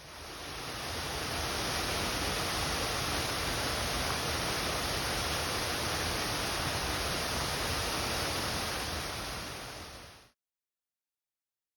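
Steady rushing noise like falling or running water. It fades in over the first two seconds and fades out about ten seconds in, then cuts to dead silence.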